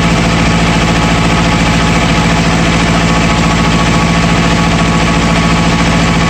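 Tractor's diesel engine running at a steady speed, loud and close.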